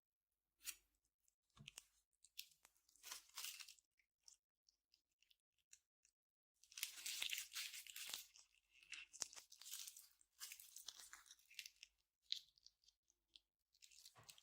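Slime being squeezed and worked by hand, giving quiet, irregular crackling and popping. There are short bursts at first, a near lull a few seconds in, then a long busy spell of crackles in the middle.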